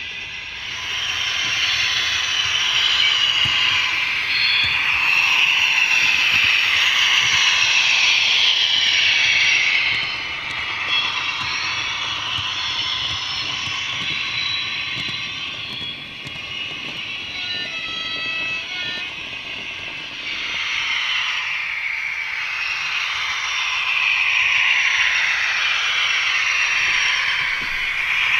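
HO-scale model train running on its track: a steady rolling hiss and rattle of small metal wheels on the rails. It is louder for the first ten seconds and again near the end as the wagons pass close.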